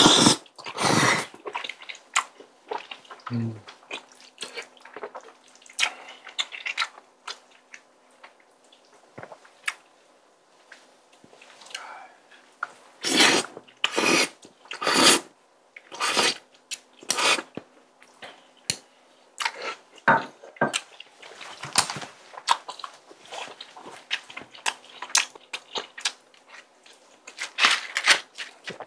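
Close-miked eating: slurping thick Chinese glass noodles coated in spicy tteokbokki sauce, and chewing, with chopsticks now and then clicking on the food container. A quick run of loud slurps comes about halfway through.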